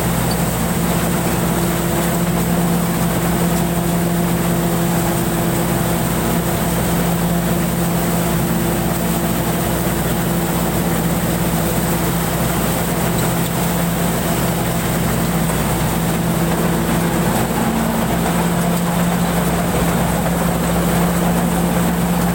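A rice combine harvester's engine and threshing machinery running steadily while harvesting, heard from the driver's seat, with a constant engine hum and a thin high whine.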